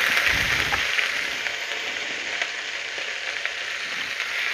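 Crushed ginger and garlic with cumin seeds sizzling in hot oil in a non-stick pan, stirred with a wooden spoon. The steady sizzle softens somewhat after the first second, with a few small pops.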